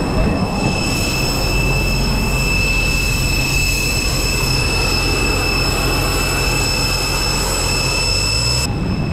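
Steady jet whine from a parked Airbus airliner: several high, even tones over a low rumble, which cut off suddenly near the end.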